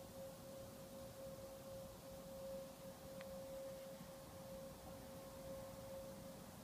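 A faint, steady, unwavering tone, with a single short tick about three seconds in.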